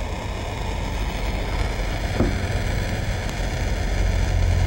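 Propane torch flame burning steadily, a hissing rumble that grows a little louder near the end.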